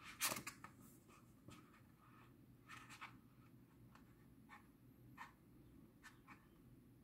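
Faint rustling of paper as a book's pages are handled and leafed through, with one louder rustle at the start and soft scattered rustles after it.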